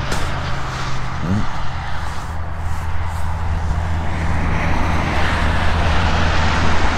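Steady low hum of a running vehicle engine with road and wind noise.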